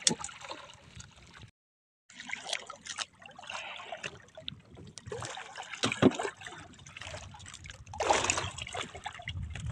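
Water lapping and trickling around a small wooden outrigger fishing boat, with scattered small knocks on the hull. There is one sharper knock about six seconds in and a louder rush of noise about eight seconds in, and the sound drops out for half a second near the start.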